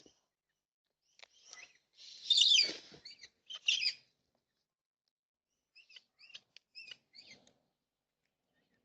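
Birds calling: a few short squawks, two of them louder and raspy, then a quick run of short chirps.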